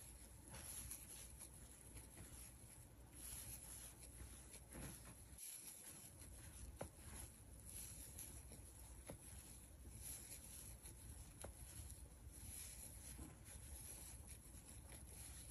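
Faint rustling of yarn being worked with a crochet hook through a round of double crochet: soft, irregular brushing with a few small ticks.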